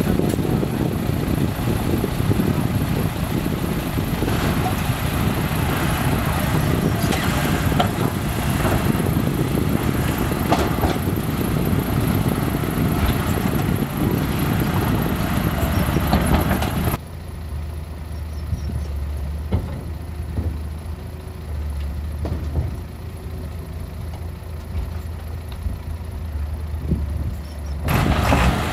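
Heavy diesel engines working hard, with scattered knocks, from a 5-ton dump truck stuck in loose dirt and the Komatsu D31P crawler bulldozer pushing behind it. About two-thirds of the way through, the sound drops to a quieter, steady low diesel rumble.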